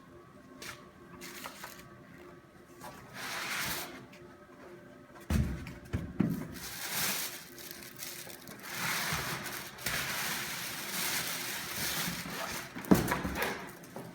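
Packaging being handled and pulled open: irregular rustling and crinkling, with a couple of sharp thumps, one about five seconds in and one near the end.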